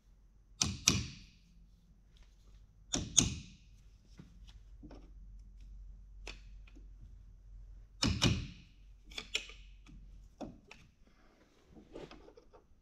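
Sharp metal knocks with a short ring, mostly in quick pairs spread over several seconds, as a Carraro transmission shaft with its clutch drum is bumped down to seat a part on it.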